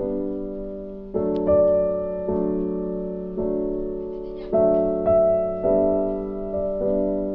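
Slow piano music: sustained chords struck about once a second or less, each ringing out and fading before the next.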